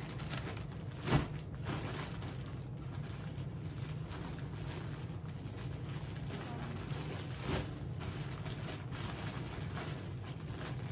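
Handling noises of packing: clothes and plastic bags rustling, with a sharp knock about a second in, over a steady low hum.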